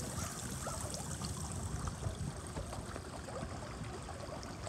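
Water trickling steadily into a rock-edged garden pond that is full to overflowing after heavy rain, with many small bubbling plinks.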